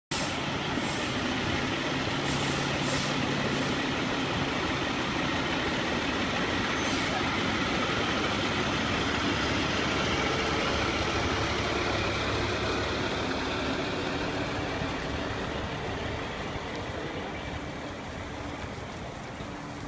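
Fire department ladder truck's diesel engine running steadily, with a few short hisses of air from the air brakes in the first few seconds and once more a few seconds later. It grows quieter near the end.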